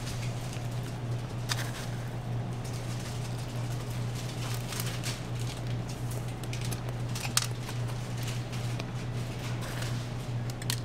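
A steady low machine hum, with a few short sharp clicks or clinks scattered through it, the loudest about seven seconds in.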